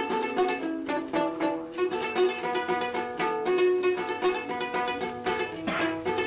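Background music on a plucked string instrument, playing a quick, continuous run of notes.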